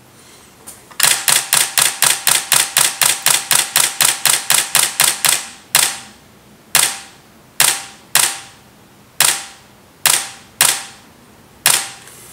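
Nikon D800E shutter and mirror firing in a continuous burst, about four to five frames a second. A little past halfway it slows to single shots spaced roughly a second apart: the camera's buffer has filled and it is locking up.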